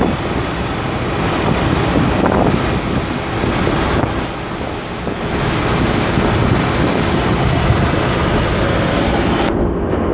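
Steady rush of wind and road noise from a car driving at speed, heard from its window.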